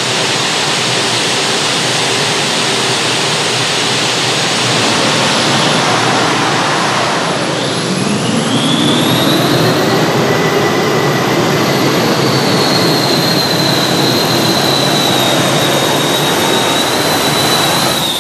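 Light modified pulling tractor's engines running loud. About eight seconds in, a high whine rises in pitch and then holds steady over the roar, falling away right at the end.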